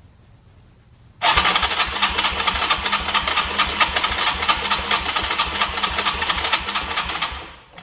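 Yamaha Bruin ATV engine being turned over by its electric starter, starting abruptly about a second in and going for about six seconds with a fast, even pulse before dying away near the end. This is a test of the no-crank fault by bypassing the starter relay and switch.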